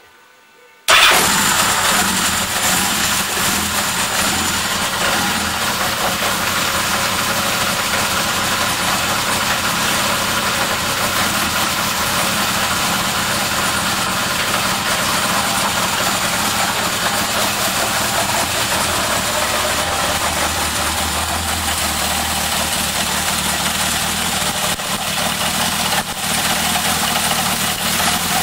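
Yamaha XS1100's air-cooled inline four-cylinder engine, running on homemade MegaSquirt fuel injection, catches suddenly about a second in and then keeps idling steadily.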